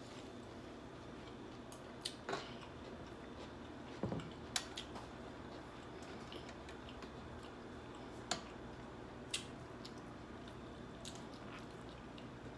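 A person chewing a mouthful of food close to the microphone: soft wet chewing with a handful of short sharp mouth clicks and smacks, the loudest about four and a half and about eight seconds in.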